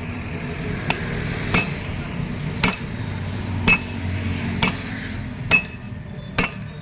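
Hammer blows, metal on metal, knocking a worn rear wheel bearing out of a Maruti Suzuki Alto 800's hub: seven sharp strikes about a second apart, each with a short ring.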